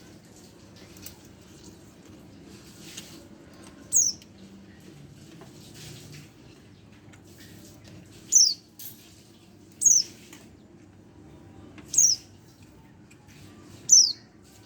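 A young white-eye (pleci) about a month old gives five short, high chirps, each sliding down in pitch, spaced a second and a half to four seconds apart, with soft rustles between them.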